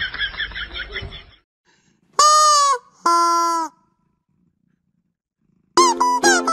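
A person's high excited voice ends about a second in. Then a cat gives two loud, drawn-out meows, the second lower than the first. Plucked-string music, like a mandolin or ukulele, starts near the end.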